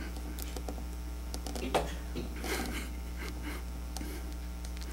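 Room tone during a pause: a steady low hum with a few faint clicks and rustles.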